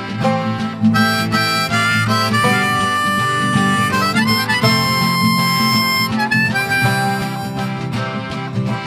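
Instrumental break of a blues-rock song: harmonica playing long held notes with short runs between them over strummed guitar.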